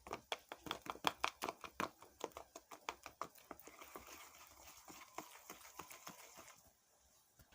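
Gram-flour bajia batter being beaten in a bowl: quick rhythmic clicking taps, about five or six a second, fading out after about four seconds.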